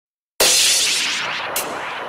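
Opening of an industrial hardcore track: after a brief silence, a sudden loud crash of noise hits and slowly fades, with a sharp high click about a second later.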